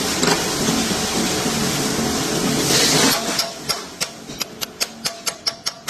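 A machine running with a steady hiss and low hum stops about three seconds in. A rapid series of sharp mechanical ticks follows, about four a second.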